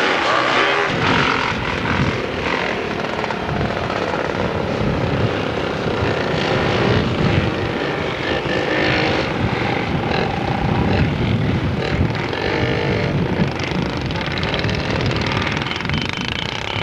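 Off-road motorcycle and three-wheeler ATV engines running hard during an enduro race, revving up and down as they pass.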